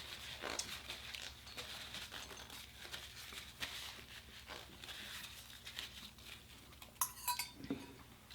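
Faint clinks and scrapes of cutlery on dishes during a meal, with a brief louder clatter about seven seconds in.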